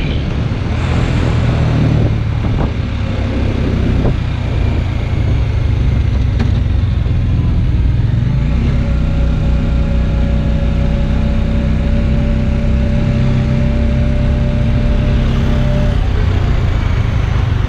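Motorcycle engine running under way, with road and wind noise on a helmet-mounted camera and other traffic around it. About halfway through, the engine settles into a steady hum at one pitch for several seconds.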